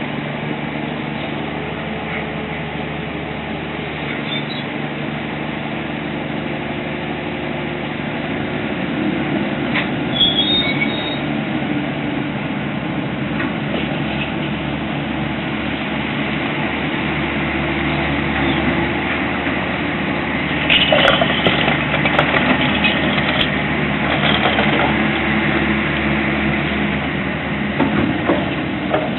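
A vehicle's engine running steadily, its hum slowly growing louder, with a run of rattling knocks about two-thirds of the way through.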